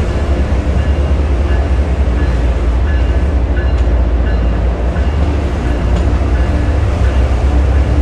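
MBTA commuter train's diesel locomotive engine running with a steady low rumble as the train moves along the station tracks.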